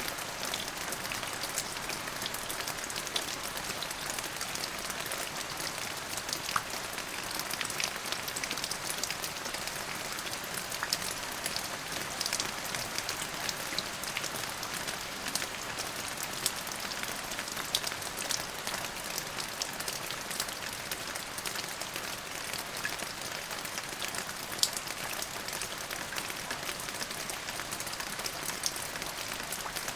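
Steady rain falling, with a dense patter of individual drops hitting a surface.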